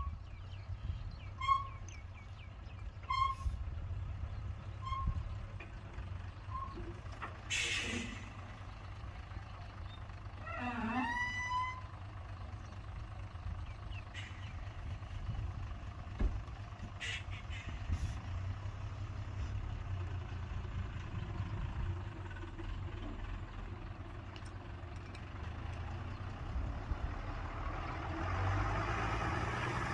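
Heavy diesel truck engine running with a low rumble while a reversing alarm beeps about every second and a half, fading out over the first several seconds. A short air brake hiss comes about 8 seconds in, and the engine noise rises near the end.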